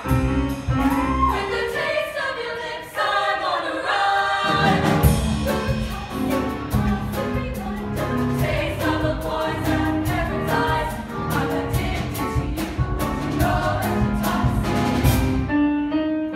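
Show choir singing in harmony to an up-tempo accompaniment with a steady beat. The heavier bass and drums come in about four seconds in, and near the end the beat stops under a held chord.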